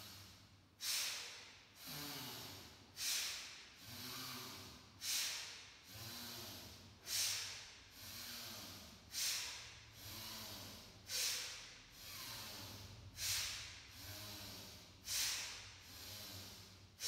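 A person doing bhastrika pranayama (bellows breath): forceful breathing through the nose in a steady rhythm. About every two seconds a sharp, loud breath is followed by a slower, softer one, about eight cycles in all.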